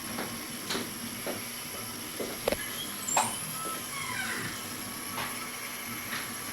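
Hobby CNC machine running: a steady hiss with a thin high whine, broken by irregular clicks and short pitched motor tones that slide up or down as the axes move.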